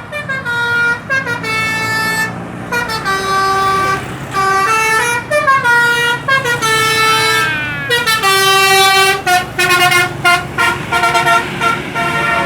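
Basuri telolet bus horn, a multi-tone musical air horn, playing a tune of held notes that step up and down in pitch, then breaking into a quick run of short staccato toots in the last few seconds, over the bus's engine.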